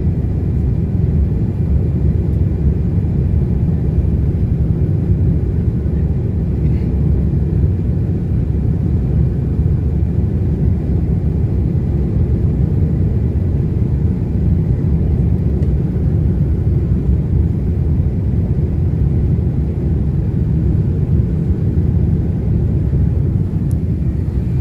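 Steady low rumble of an airliner during its landing, even and unbroken, with a faint thin whine above it.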